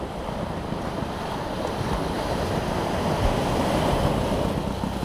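Small waves breaking and washing up on the beach, swelling louder about midway and easing near the end, with wind buffeting the microphone.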